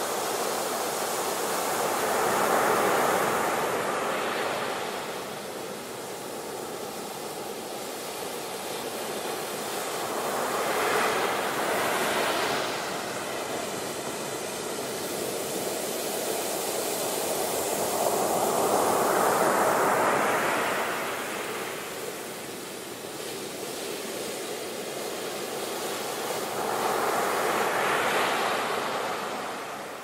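Ocean surf: waves breaking and rushing up the beach, a continuous hiss of white water that swells and fades about every eight seconds, four surges in all.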